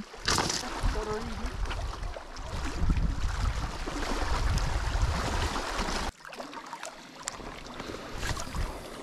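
Wind buffeting the microphone: a low rumble over a steady rush of wind and lake water. About six seconds in it drops abruptly to a quieter, softer rush.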